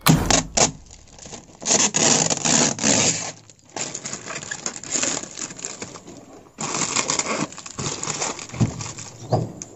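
A sheet of old plastic window tint film crinkling and crackling as it is crumpled in the hands, in three long bursts with two short pauses.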